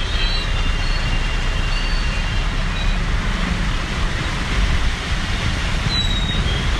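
Steady noise of road traffic on a wet, flooded street, with engines and tyres on water blending into a constant rumble and hiss. A short high tone sounds about six seconds in.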